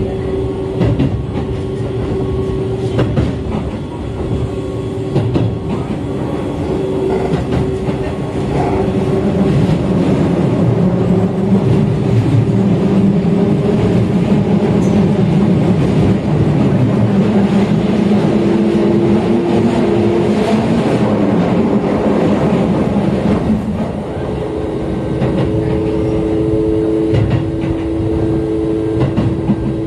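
Cabin of a Keio Line electric commuter train running: wheel-on-rail rumble with a few rail clacks and steady humming tones from the drive. The train grows louder through the middle, and near the end the hum shifts to a steady two-note tone.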